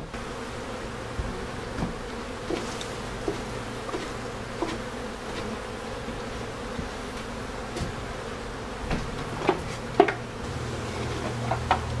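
Mass of honeybees buzzing steadily over an open hive, with scattered wooden knocks and clunks as hive boxes and frames are handled; the loudest knocks come about nine to ten seconds in. A deeper low hum joins near the end.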